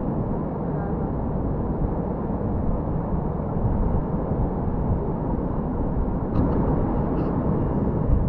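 Steady low rumbling noise on the GoPro Hero8's own microphone, with a couple of faint clicks late on.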